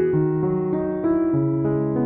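Background music: a slow keyboard melody of sustained notes, with a new note about every half second.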